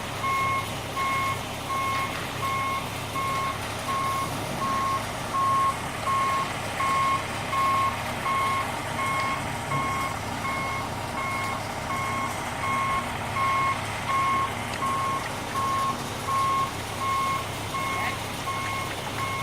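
Backup alarm of a concrete mixer truck beeping steadily, about three evenly spaced beeps every two seconds, over the low, steady running of its diesel engine as the truck reverses.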